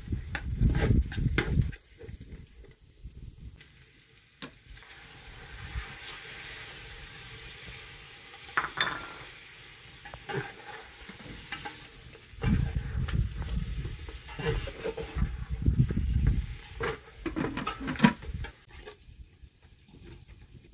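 Long slotted metal spoon stirring and scraping onions and meat frying in a large steel pot over a wood fire, with a steady sizzle. The stirring comes in two spells, in the first couple of seconds and again from about the middle until near the end, with the pan sizzling between.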